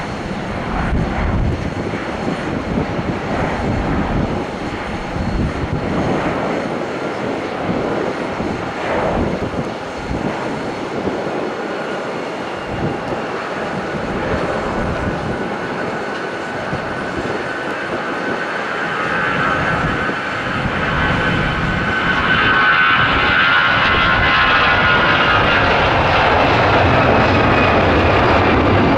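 Airbus A320 airliner's jet engines at takeoff power during the takeoff run, a continuous rumble that grows louder about two-thirds of the way through, where a high whine joins it.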